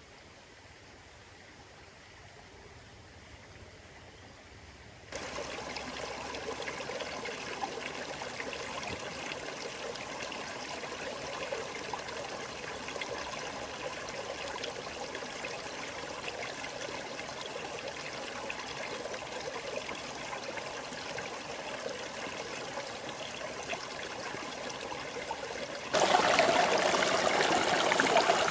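Forest mountain stream flowing: a steady rush of water, faint at first, jumping abruptly louder about five seconds in and again near the end.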